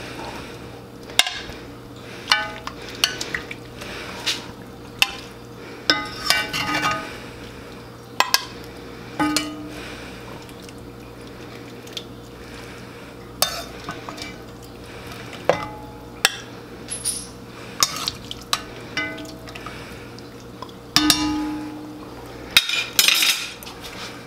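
Long metal serving spoon clinking and scraping in an enameled cast-iron Dutch oven as vegetables are scooped out. The knocks come irregularly, one or two a second, each ringing briefly.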